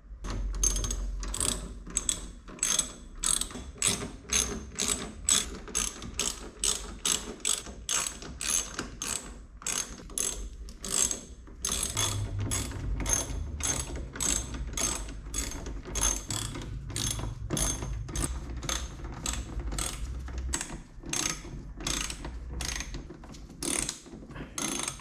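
Hand ratchet clicking steadily, about three clicks a second, as its pawl slips back on each return stroke while Torx screws are backed out of a car door panel.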